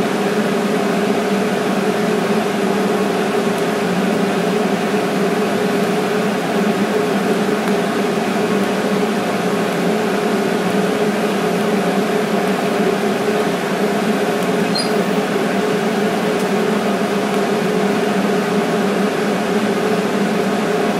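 TIG welding arc on mild steel from a Longevity TIGweld 200 DX, an unbroken steady hiss with a steady buzzing hum, as the welder lays small puddles and dabs in filler rod.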